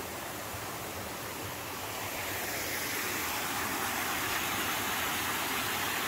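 Water splashing down a small cascading garden waterfall: a steady rushing noise that grows louder about two seconds in.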